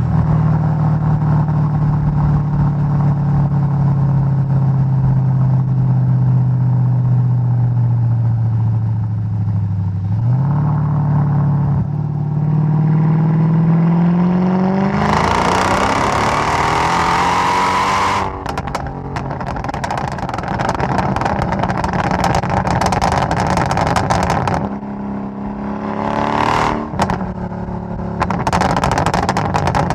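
Mercedes E55 AMG W211's supercharged V8, tuned to 580 hp, driving. It cruises with the engine note slowly falling, then the revs climb through two rises and it accelerates hard for about three seconds. Off the throttle the exhaust crackles and pops on the overrun, with a short rev and more crackling near the end.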